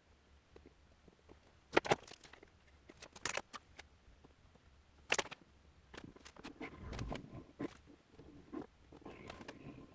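Scattered light knocks and clicks of objects being handled, with a short low thud about seven seconds in; no motor is running.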